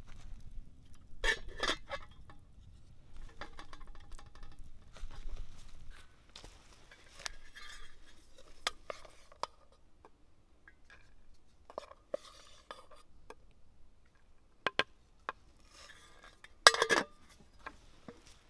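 A spoon scraping and clinking in a metal pot of cooked buckwheat porridge, in scattered strokes, with a loud clatter near the end as the metal lid is set on the pot.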